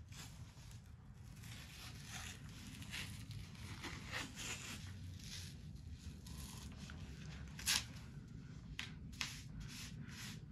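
Athletic tape being pulled off the roll and wrapped around an ankle: a series of short, faint rasping swishes as the tape unspools, and one sharp rip about three-quarters of the way through.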